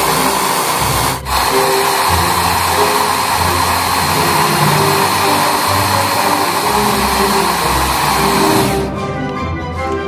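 Countertop food processor motor running steadily under load as it grinds red fruit into a thick purée. It stops near the end, leaving background music.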